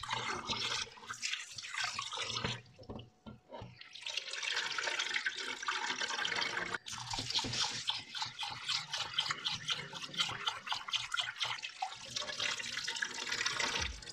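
Tap water running into a glass bowl of rice in a stainless steel sink while hands swish and rub the grains to wash them. The running water dips quieter for about a second around three seconds in, and the second half has a quick, rhythmic scrubbing.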